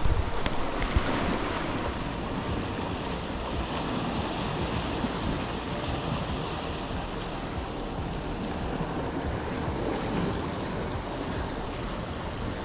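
Sea surf washing and breaking against the rocks below, a steady rushing wash with wind buffeting the microphone. A couple of short knocks in the first second.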